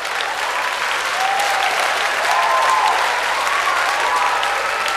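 Audience applauding after a joke, the applause swelling slightly about two seconds in.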